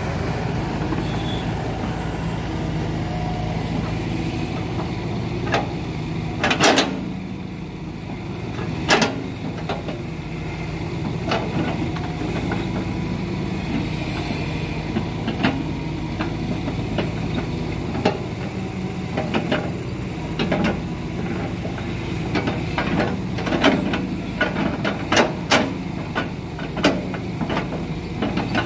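Hitachi crawler excavator's diesel engine running steadily while it loads rubberwood logs with a grapple. Sharp knocks of the loading come through it, a loud one about a quarter of the way in and a quick run of them near the end.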